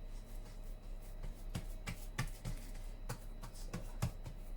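Oiled hands pressing and patting pizza dough out on a wooden board: a series of soft, irregular taps and pats, about seven, with a low steady hum under them.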